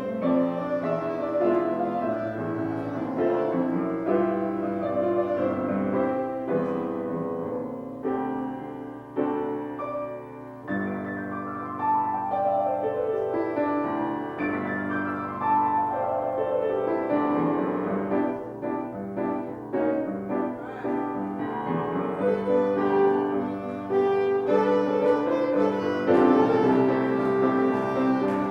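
Instrumental music led by piano, with sustained chords and quick runs sweeping down and then back up the keyboard.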